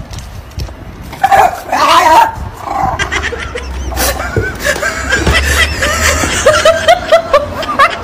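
A dog's high, wavering cries mixed with a person laughing, repeating in short arcs.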